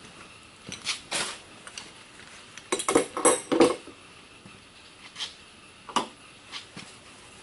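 Metal brake parts and hand tools clinking and knocking as a rear disc brake caliper assembly is taken apart, with a quick cluster of clanks about three seconds in the loudest.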